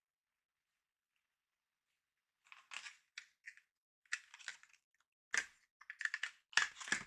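Short bursts of plastic crinkling and clicking as the packaging of a Lexar M.2 NVMe drive is handled and opened. They begin after a couple of seconds of near silence and grow louder toward the end.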